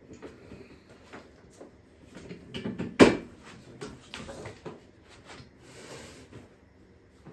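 Scattered knocks and clatter of gym equipment being handled, with one sharp, loud knock about three seconds in.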